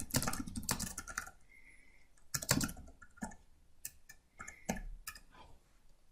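Typing on a computer keyboard: irregular clusters of key clicks, densest in the first second, with further runs about two and a half seconds in and around the four-to-five-second mark.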